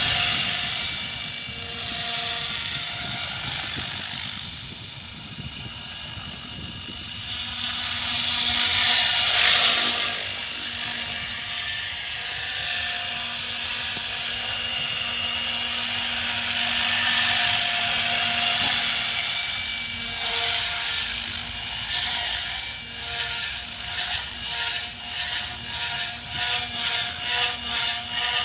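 Electric 700-size KDS radio-controlled helicopter flying low: a steady motor and gear whine with the swish of the main rotor, swelling and fading as it moves and loudest about nine seconds in. In the last few seconds the sound pulses about twice a second.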